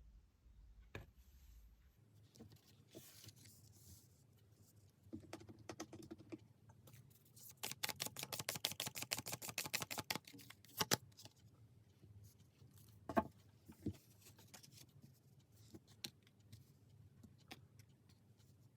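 Tarot cards being handled and shuffled by hand: faint scattered taps and rustles, with a run of quick clicks, about ten a second, in the middle, and a couple of sharper single taps soon after.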